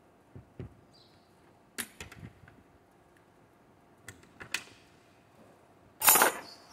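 Scattered metal clicks and taps as a router bit is fitted and tightened in the collet of a portable trim router, which is not running. Near the end comes a louder, half-second clatter as the router is handled and set down on the wooden bench.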